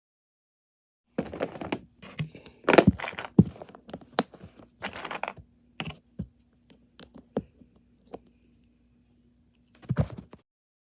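Plastic Mathlink cubes clicking and clattering as they are handled and snapped together. It comes as a rapid run of sharp clicks and rustles, then scattered single clicks and a last short cluster near the end.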